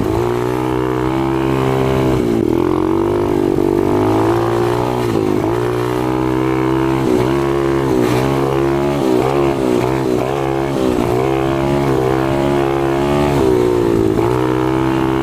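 Four-stroke pit bike engine running under a constantly changing throttle while being ridden, its pitch repeatedly rising and dipping without settling to a steady note.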